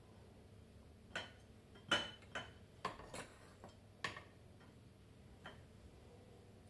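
Light clinks and taps of kitchen utensils against dishes, about seven short strikes in quick, uneven succession over a few seconds, then one faint tap.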